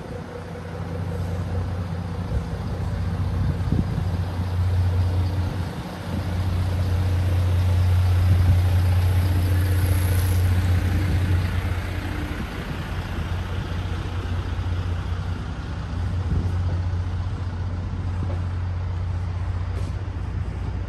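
A large vehicle engine runs nearby with a steady low hum. It grows louder about six seconds in and eases off after about twelve seconds.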